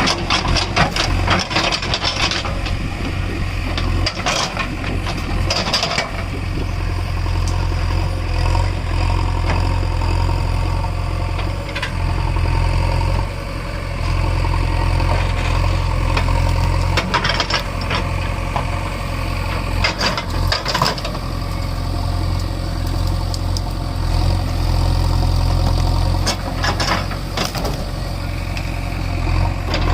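JCB 3DX Super backhoe loader's diesel engine running steadily under work, with several sharp knocks from the machine scattered through.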